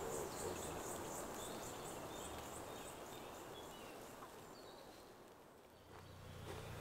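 Faint countryside ambience: insects chirring in an even pulsing rhythm with scattered short bird chirps, fading away. About six seconds in, a low steady hum fades in.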